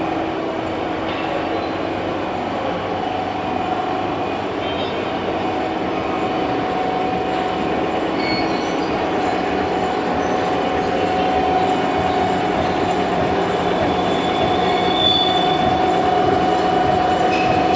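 Horizontal boring and milling machine running, a steady mechanical hum with a few brief high-pitched metallic squeals, getting slightly louder towards the end.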